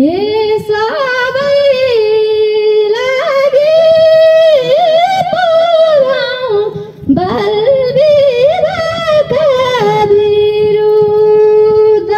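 A girl singing a Nepali thadi bhaka folk song solo into a handheld microphone, in long drawn-out phrases with held, wavering notes. She pauses briefly for breath about seven seconds in, then holds one long steady note near the end.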